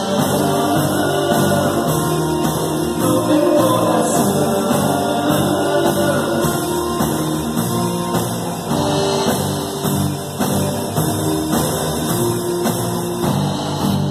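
Gospel worship band playing a song with drums and sung vocals.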